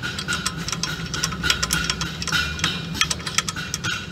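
Rear drum-brake adjuster on a Nissan Civilian bus being turned with a tool through the backing plate, giving a fast, irregular run of metallic clicks, over a steady hum. The adjuster is being backed off to loosen the brake shoes so the drum can be pulled off.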